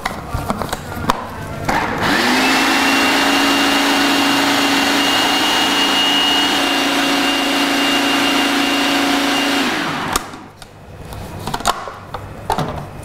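Electric food processor blending a wet raw pizza-crust mixture. After a few plastic clicks as the lid and pusher are set, the motor spins up about two seconds in and runs steadily for about eight seconds, then winds down. More plastic clicks follow as the lid is handled near the end.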